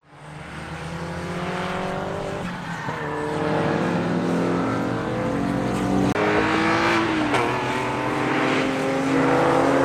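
Car engines at high revs lapping a race track, with a pitched engine note that rises and falls. The note changes abruptly twice as one car's sound gives way to another's, and the sound fades in at the start.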